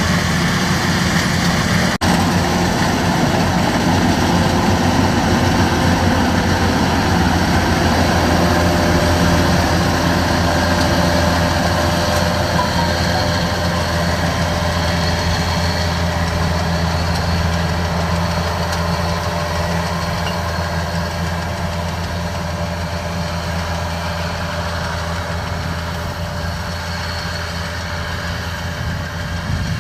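Kubota DC-93 combine harvester's diesel engine running steadily, a deep continuous drone that slowly gets quieter over the second half.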